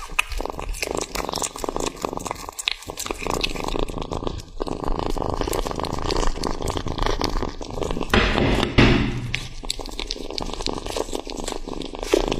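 A kitten chewing and tearing at raw steak: a dense, irregular run of wet smacking and clicking. About eight seconds in there is a louder noisy sound lasting about a second.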